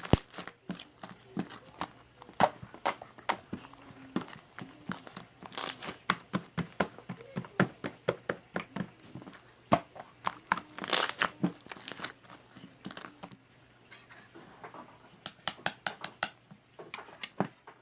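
Clear slime with air bubbles in it being squished and pulled, giving a run of irregular sharp clicks and crackles as the bubbles pop, with a quick burst of clicks near the end.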